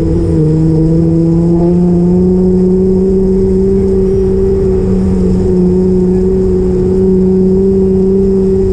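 A vehicle engine running with a steady low hum, its pitch rising slightly over the first couple of seconds and then holding.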